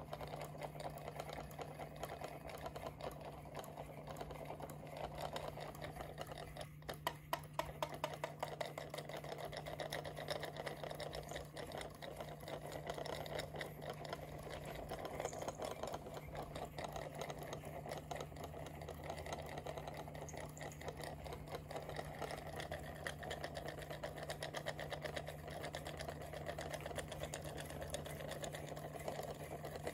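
Two-cylinder low-temperature-difference Stirling engine running on a hot drink, its pistons and crank ticking in a rapid, steady clatter. About seven seconds in there is a short run of louder clicks.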